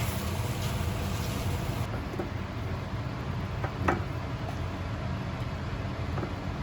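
Steady low rumble in a home kitchen, with one sharp clink of a spatula against the wok about four seconds in as apple pieces are turned in caramelised sugar syrup.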